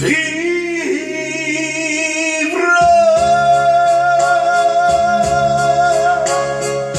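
A man singing an Italian ballad into a handheld microphone over a keyboard backing track with a steady beat. After a short sung phrase he holds one long note for about three seconds.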